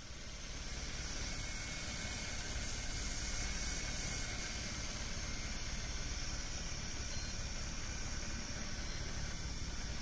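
A fishing boat's engine running steadily under a constant hiss of wind and sea.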